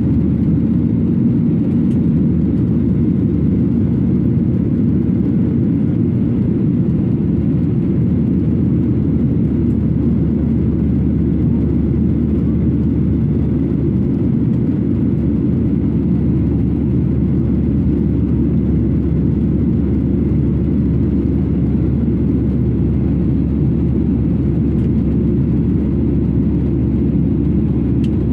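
Jet airliner cabin noise heard from a window seat over the wing during the climb: a steady, loud low rumble of engines and airflow.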